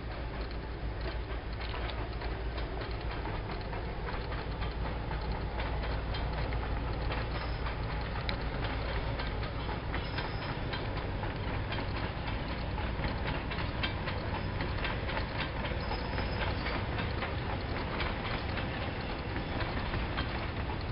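Diesel-hauled ballast train of loaded wagons rolling steadily past, wheels clicking and clattering over the rail joints over a low, even rumble.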